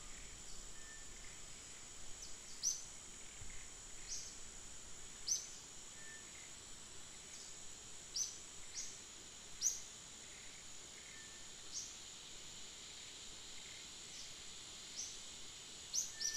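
Outdoor tree-canopy ambience: a steady high-pitched insect drone, with short falling bird chirps every second or so at irregular intervals, some louder than others.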